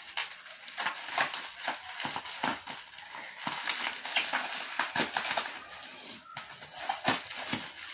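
Plastic bubble wrap being handled and pulled apart by hand: an irregular run of crinkling and crackling.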